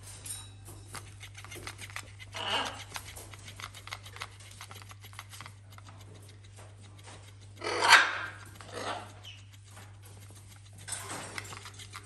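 A macaw's beak and feet working at a plush toy fish on a fleece blanket: scratching, rustling and small clicks, with short rasping bursts, the loudest about eight seconds in.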